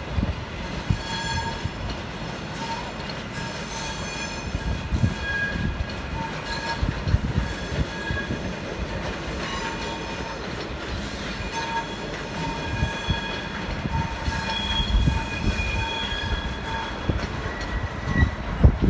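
Train hauled by an SJ Rc6 electric locomotive moving over track, its wheels squealing on and off throughout over a low rolling rumble.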